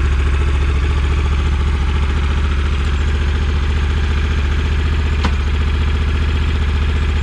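Motorcycle engine idling steadily on its first start after months of winter storage. A single sharp click sounds about five seconds in.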